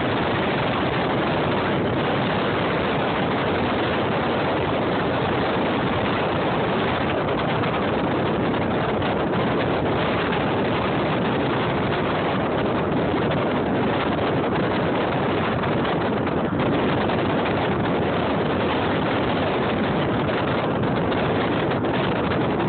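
Steady rushing noise from a car on the move: engine and road noise mixed with wind on the microphone.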